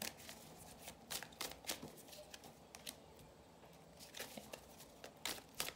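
Tarot deck being shuffled by hand: soft card-on-card rustles and light taps, busiest in the first two seconds and again in the last second and a half, with a quieter lull about three seconds in.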